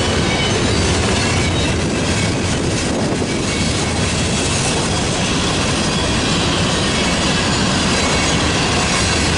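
Freight train cars rolling past close by: a loud, steady rumble and rattle of steel wheels on the rails.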